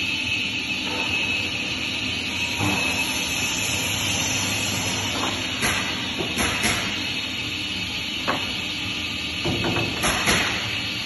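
Enclosed CNC timber cross-cut saw running with a steady hiss and hum, with sharp knocks and clatter of wood about six seconds in and again near the end, the loudest about ten seconds in.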